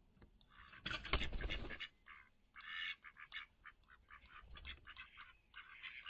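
A female duck at a birdseed feeding bowl making a rapid run of short, raspy duck sounds, several a second. There is a louder rustle lasting nearly a second, starting about a second in.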